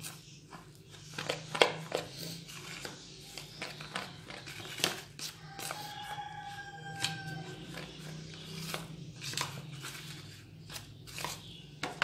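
Fingers stirring a dry, ground egg-food mix (roasted seeds, dried shrimp and crab, dried worms) in a bowl: scratchy rustling with irregular light ticks.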